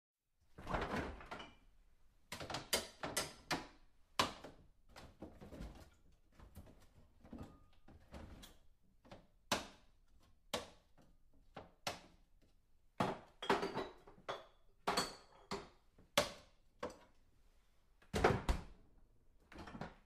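Someone rummaging in a refrigerator: an irregular run of knocks, bumps and rattles as things inside are shifted about. The loudest knocks come about a second in and near the end.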